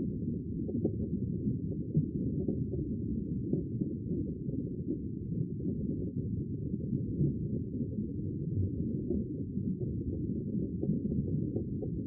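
Muffled underwater ocean ambience: a steady low rumble of moving water with faint crackles, no high sounds at all.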